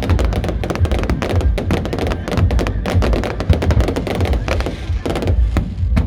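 Aerial fireworks going off in a dense barrage of bangs and crackles over a low rumble, thinning to a few separate bangs near the end.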